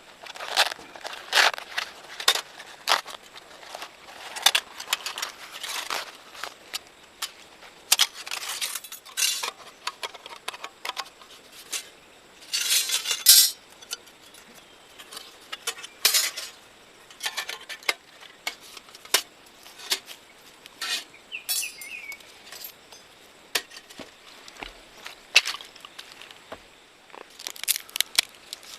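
Small hard objects clinking and knocking at irregular intervals, with a longer rustling scrape about thirteen seconds in.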